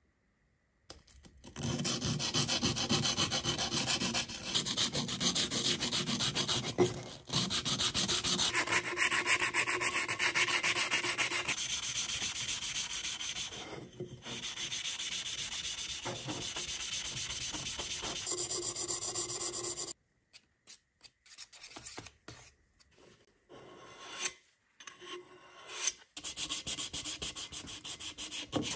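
Hand scrubbing and sanding of an old sheet-metal oil can with an abrasive pad and sandpaper, in fast, even rubbing strokes. A few seconds of scattered small scrapes and knocks come about two-thirds of the way through, then the rubbing resumes.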